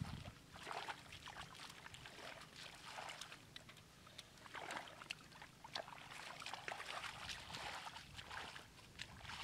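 Irregular splashing and sloshing of shallow muddy water as hands grope through the mud and a metal basin is slid along the water's surface.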